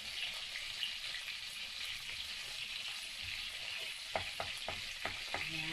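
Chicken thighs sizzling in melted butter in a frying pan, a steady hiss, with a wooden spatula clicking against the pan about five times near the end.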